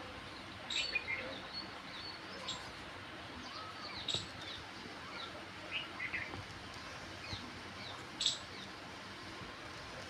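Birds chirping: short, sharp high calls every second or so over a steady background hiss, the loudest about eight seconds in.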